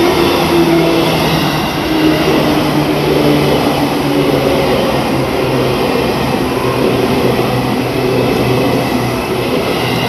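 A yellow Seibu electric commuter train passing over a level crossing. The wheels make a loud, steady rolling noise, under a low hum that drops slightly in pitch.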